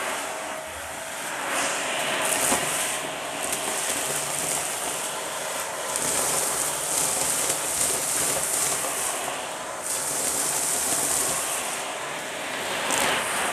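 Dyson vacuum cleaner running with its hose sucking up a pile of dry debris (pasta pieces, grit, scraps of paper) from a shag rug, the pieces crunching through the hose. A steady rushing hiss that swells and eases every few seconds as the nozzle takes in more or less of the pile.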